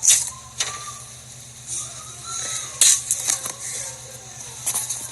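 A scatter of sharp clicks and knocks, the loudest right at the start and about three seconds in, with a few quick ones near the end, over a steady low hum.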